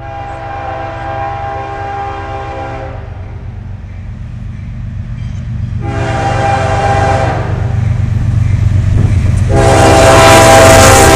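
CSX freight train's diesel locomotive horn blowing three times as the train approaches: a long blast, a short one, then a long one whose pitch drops as the lead locomotive passes near the end. Under it the diesel engines rumble steadily, growing louder, with wheel and rail noise coming up in the last couple of seconds.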